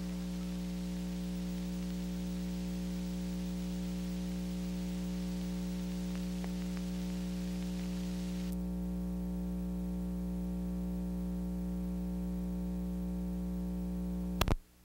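Steady electrical hum with hiss on a blank stretch of an old recording's soundtrack. The hiss drops about two-thirds of the way through, and a single loud click near the end cuts the hum off.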